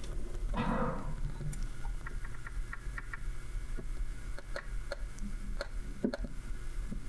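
Small handling clicks and faint ticks as a soldering iron and wires are worked against tiny metal JST crimp terminals. There is a short rustle about half a second in, a quick run of faint ticks a couple of seconds in, then a few separate light clicks, all over a steady low hum.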